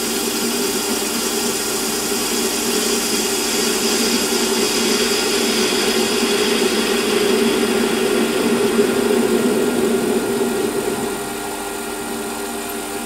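Metal-turning lathe running with a facing tool taking a light 5-thou cut across the end of a small cylinder end cap: a steady machine hum with cutting hiss. It gets a little quieter about eleven seconds in.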